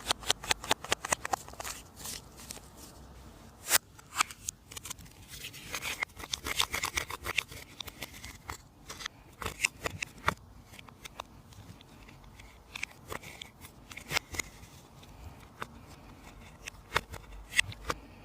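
Slime being worked by hand, with a dense run of sticky clicks and pops at the start, a crackly stretch a few seconds later, and scattered single clicks in between.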